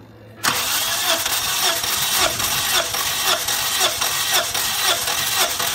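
Nissan QG18DE 1.8-litre four-cylinder engine being cranked over by its starter motor for a compression test, with the spark plugs out and a gauge in the first cylinder. It sets in about half a second in as an even chugging of about three pulses a second. The gauge reads 10 kg/cm², a healthy compression for this cylinder.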